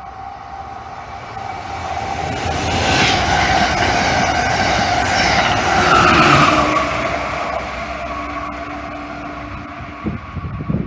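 Amtrak Siemens ACS-64 electric locomotive and its train passing close at speed. The rush of wheels on rail builds over a couple of seconds, stays loud for several seconds, then fades, with a whine that drops in pitch as it goes by.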